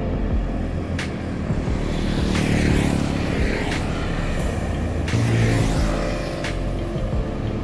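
Road traffic: engine rumble and tyre noise of passing vehicles, swelling in the middle and again near the end, over background music with a slow regular beat.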